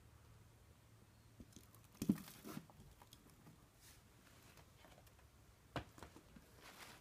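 Faint handling noise: a soft knock with a short rustle about two seconds in, a sharper knock near six seconds, and light scratchy rustling near the end, as the plastic beetle container and its substrate are moved about.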